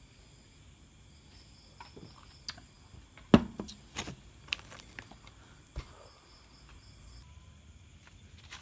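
A drink can handled on a tabletop: one sharp knock with a dull thud, as of the can being set down, about a third of the way in, then several lighter clicks and taps. A faint steady high whine runs behind it.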